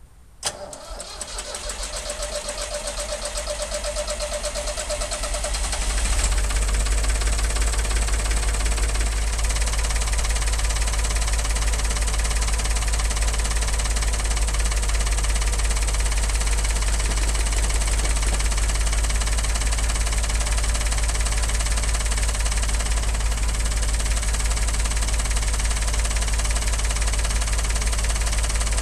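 David Brown 780 tractor's three-cylinder diesel engine starting from cold. It catches with a sharp bang about half a second in, runs up, getting louder over the first six seconds, then settles into a steady, even run.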